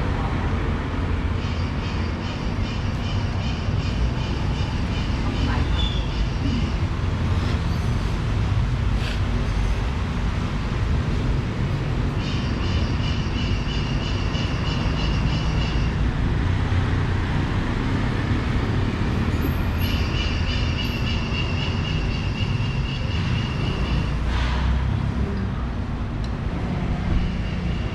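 Steady low rumble of traffic. Three times, for a few seconds each, a high-pitched pulsing sound rises over it.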